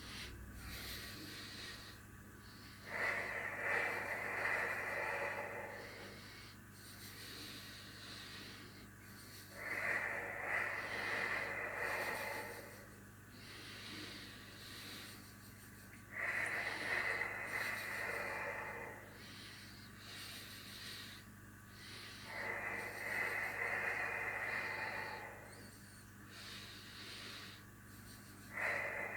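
Slow, controlled breathing: in through the nose and out through the mouth into a loosely curled fist. A louder breathy phase alternates with a quieter one in a steady cycle of about six seconds, about four and a half breaths in all.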